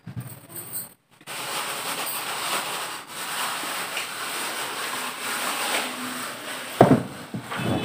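Scratchy rubbing noise from a clip-on microphone held in the fingers right at the mouth, with a short sharp knock near the end.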